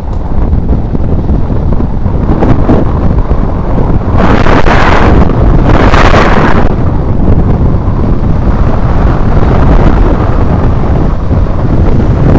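Wind buffeting the microphone of a mountain bike's handlebar camera while riding at speed on tarmac: a loud, steady low rumble with two stronger gusts about four and six seconds in.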